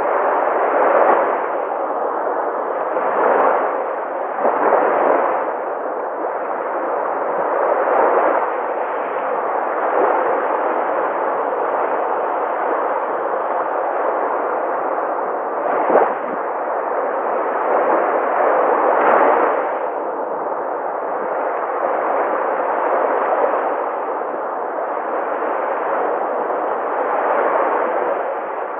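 Sea waves breaking on a shore: a continuous wash of surf that swells louder every few seconds as waves break, with one sharper crash about sixteen seconds in.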